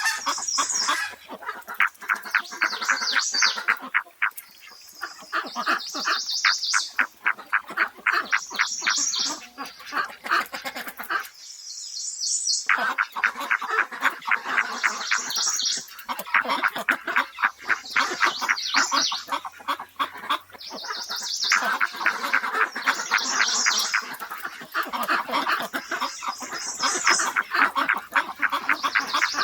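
Birds calling in fast chattering series of repeated notes, phrase after phrase a few seconds long, with one short pause about twelve seconds in.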